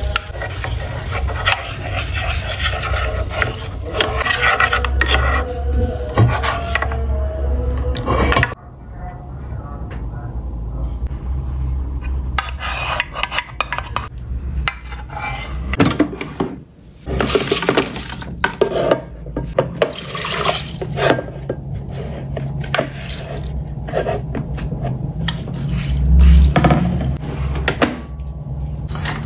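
Home cooking sounds: a wooden spoon stirring and scraping a metal pan of simmering sauce, with scattered clinks of the pan and bowl as the thickened sauce is poured onto pak choy. A short electronic beep from a rice cooker's control panel comes at the very end.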